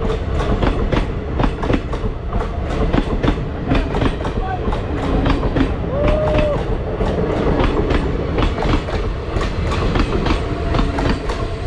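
Train running along the rails: a steady low rumble of wheels with a rapid, repeated clatter of clicks.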